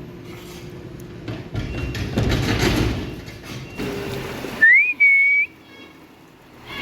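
A person whistling sharply: a short rising note, then a held note, the loudest sound here. Before it, machinery runs steadily, with a louder clatter about two seconds in.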